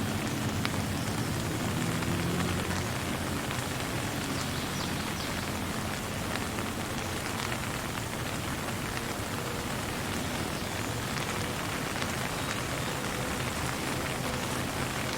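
Steady rain falling, a dense, even hiss of many drops landing, with a low rumble underneath during the first few seconds.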